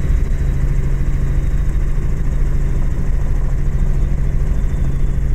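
Robinson R44 helicopter in flight: the steady drone of its piston engine and rotors, an even low hum with no change in pitch or level.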